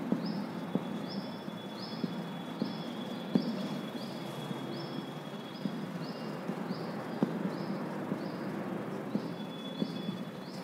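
Marker pen writing on a whiteboard: soft scratching with scattered light taps. Under it runs a faint high chirp that repeats about twice a second.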